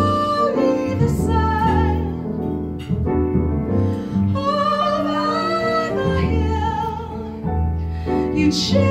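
A woman singing a ballad live into a microphone with piano accompaniment, holding long notes with vibrato.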